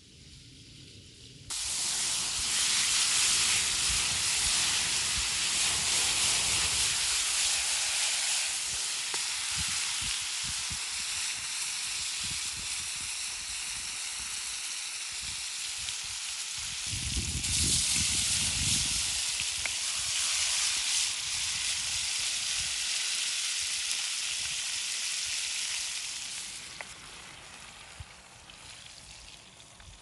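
A steady sizzling hiss that starts abruptly about a second and a half in and fades away near the end, with a brief low rumble a little past halfway.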